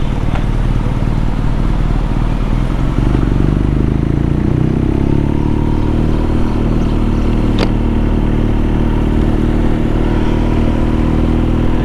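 BMW R nineT's air/oil-cooled boxer-twin engine running as the motorcycle rides along, heard from on the bike; the engine note dips and rises a few seconds in. A single sharp tick sounds about two-thirds of the way through.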